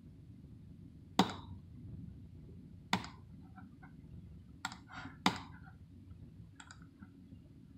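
Computer mouse button clicks: four sharp clicks a second or two apart, with a few fainter ones between, over a steady low hum.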